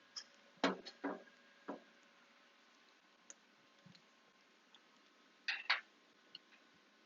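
A power cord plug being worked into a printer's power inlet: a few sharp plastic clicks and knocks in the first two seconds, then two louder clicks as it seats.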